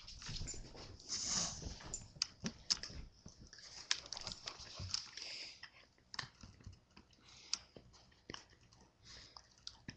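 Border collie puppy clambering up onto a couch and mouthing close to the microphone: rustling with a scatter of clicks, taps and small knocks, busiest in the first half.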